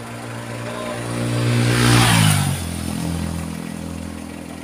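A motor vehicle passing close by on the road. Its engine grows louder, peaks about two seconds in, drops in pitch as it goes past, then fades away.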